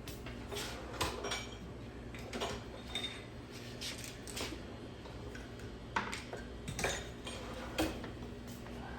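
Clinks and knocks of a kitchen scoop against a bowl as ravioli filling is scooped out: a dozen or so short, sharp taps at uneven intervals, over a steady low hum.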